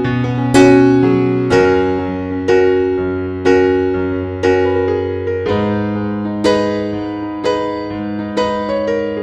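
Background music: a slow piano piece, notes struck about once a second and fading, over held bass notes.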